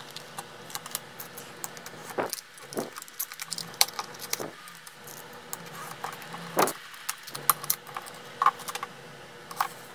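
Plastic blister packs being handled and slit open with a snap-off utility knife: irregular clicks, crackles and scrapes of plastic and card, the sharpest about two-thirds of the way through.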